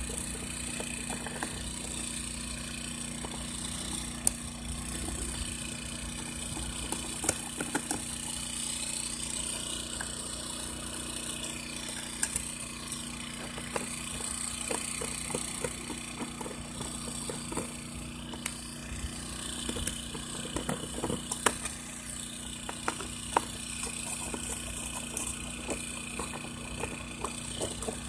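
Scattered short clicks and taps of a Phillips screwdriver working screws loose from the plastic front panel of a Champion 2000-watt inverter generator, over a steady low background hum and a steady high hiss.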